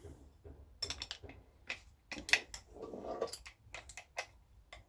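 Sharp clicks and knocks of hard parts being handled while an angle grinder is put together, about eight in all, the loudest a little past two seconds in. A short voice-like sound comes just after three seconds in.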